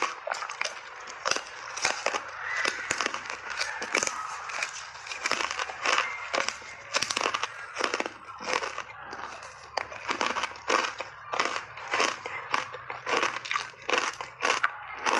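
Hard ice bars being bitten and chewed close to the microphone: loud, irregular crunches, about two a second, with crackling between the bites.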